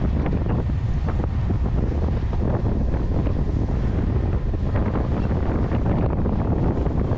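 Strong wind rumbling steadily on the microphone aboard a sailboat under sail, with the rush of choppy waves along the hull beneath it.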